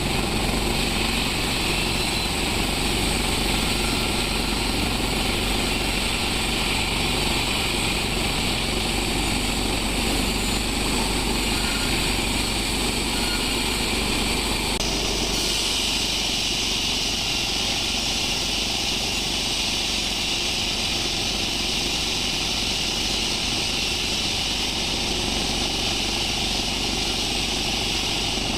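Sawmill machinery running steadily. About halfway through, the sound abruptly shifts to a brighter, higher hiss that then holds steady.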